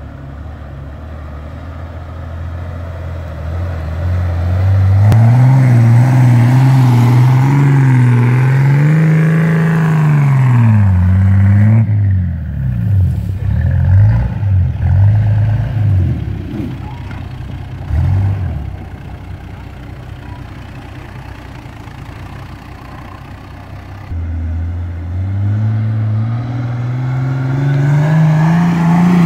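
Toyota Land Cruiser HJ60's straight-six diesel engine working hard off-road in deep sand. The revs climb and hold, dip and rise again about ten seconds in, and then jump up and down unevenly for several seconds. It eases to a quieter run and then climbs steadily again near the end.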